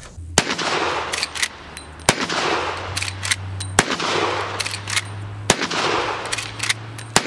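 A .45-70 Henry Side Gate lever-action rifle fired five times, about one and a half to two seconds apart. Each shot echoes away, and the lever clicks as it is worked between shots.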